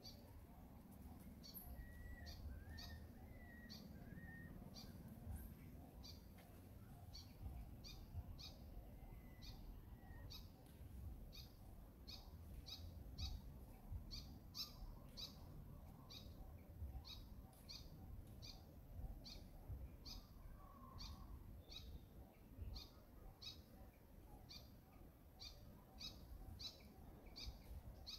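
Faint, short high chirps repeating irregularly about two a second, from a calling bird or other small animal, with a few brief lower whistles in the first few seconds over a low background rumble.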